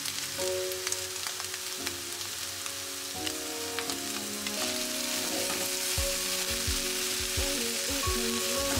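Fried rice sizzling in a hot non-stick pan. From about six seconds in, spatula strokes stir it, with soft repeated thuds. Background music with held notes plays over it.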